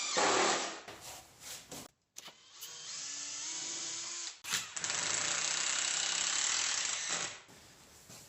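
Power tools running on wood in several short bursts, each starting and stopping abruptly. The loudest run, near the middle, lasts about two and a half seconds, then the sound falls to a low background.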